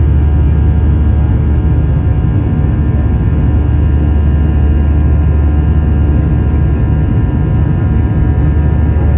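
Cabin noise of a Boeing 737-800 climbing out after takeoff: its CFM56-7B turbofan engines and the rushing airflow make a loud, deep, steady drone.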